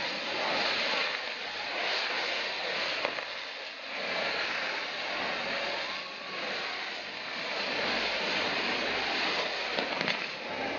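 Ground fireworks (nar tal-art) hissing and crackling continuously as they throw off sparks, swelling and easing every couple of seconds, with a few sharp cracks near the end.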